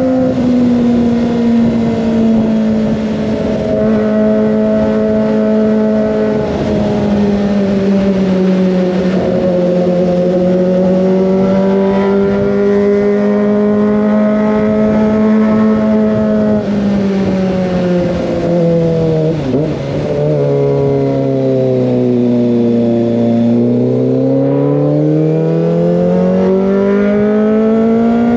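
Kawasaki ZX25R's 250 cc inline-four running through an Over Racing GP-RS full-system exhaust while being ridden. The engine note holds high, sinks steadily to about half its pitch over several seconds with a brief stutter about twenty seconds in, then climbs again near the end as the bike accelerates.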